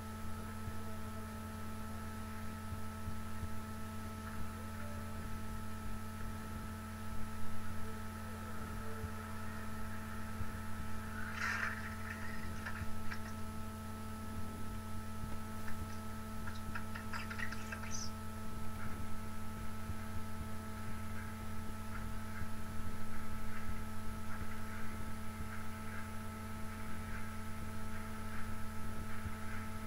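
Steady electrical hum made of several constant tones, with a few faint clicks and rustles about a third of the way in and again just past the middle.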